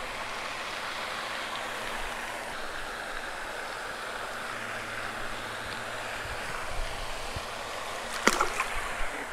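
Steady rushing outdoor background noise. About eight seconds in comes a brief splash as a bluegill is let back into the pond.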